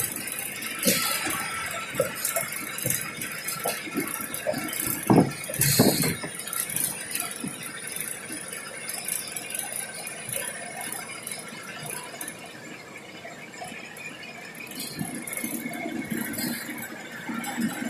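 Bus cabin fittings rattling and clicking as the bus drives along the highway, over a steady road and engine hum. There are two louder knocks about five to six seconds in.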